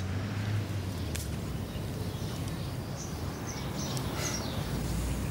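Outdoor background ambience: a steady low hum and noise, with faint short high chirps about three to four seconds in and a single faint click about a second in.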